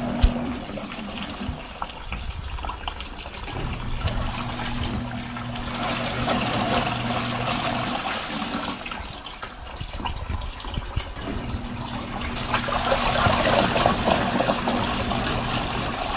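Small portable twin-tub washing machine's wash tub churning and sloshing soapy water around a load of clothes. The motor hum drops out and comes back a couple of times, and there is a single click just after the start.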